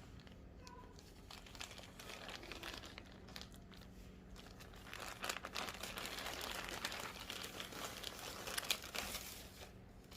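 Packaging crinkling and rustling as it is handled and opened, a dense run of crackles that grows louder and busier about halfway through.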